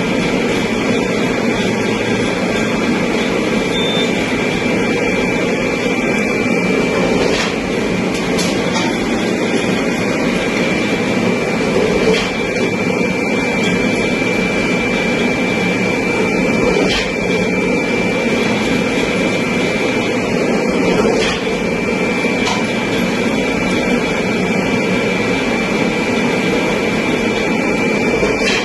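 Brazing torch flame burning with a steady hiss, a thin high whistle held on top, and a few light clicks along the way.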